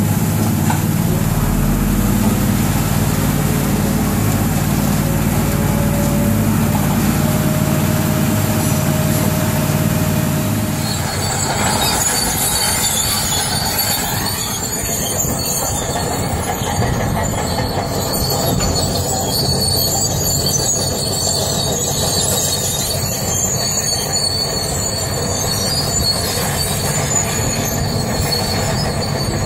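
Heavy construction machinery with its engine running. From about eleven seconds in, a high-pitched metallic squealing joins and keeps on.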